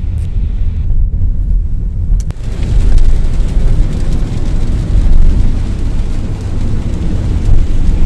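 Cabin noise inside a Nissan Serena minivan driving on a wet road: a steady low rumble of engine, tyres and wind. A click about two seconds in, after which the noise gets louder and fuller.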